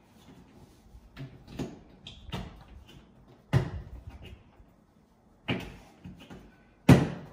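A series of irregular knocks and clunks from a washer dryer's casing and fittings being handled, about six in all, the loudest near the end.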